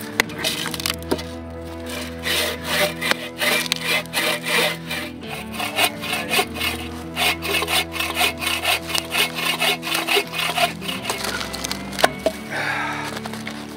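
Bow saw cutting firewood logs in quick, even back-and-forth strokes that stop about two seconds before the end, with a single sharp knock near the end. Background music plays underneath.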